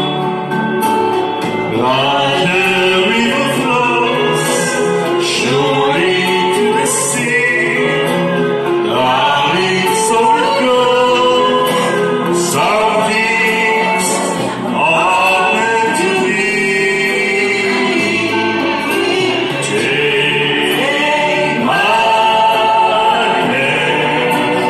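A man and a woman singing a duet into handheld microphones, their voices amplified, continuous through the whole passage.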